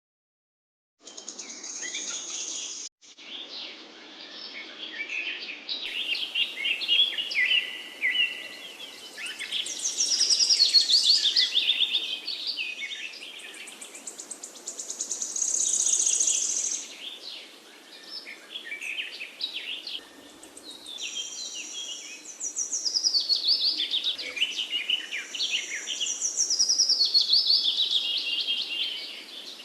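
Several songbirds singing and chirping at once, a dense mix of quick chirps and trills. It starts about a second in and drops out briefly near the three-second mark.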